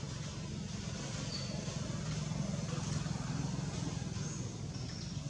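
A steady low mechanical hum under a light hiss, with a few faint, short high chirps about a second and a half in and near the end.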